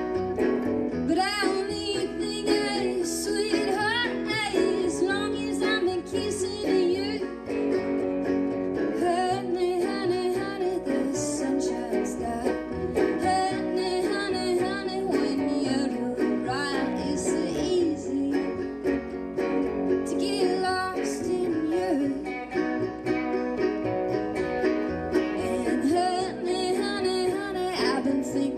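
Live band playing a song on electric guitar, acoustic guitar and upright bass.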